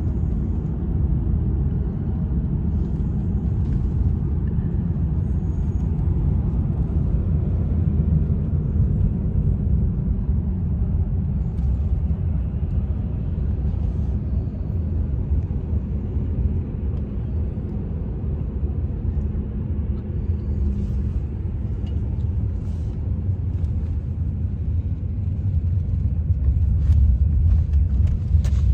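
Steady low road rumble of a moving car, heard from inside the cabin in the back seat, growing a little louder near the end.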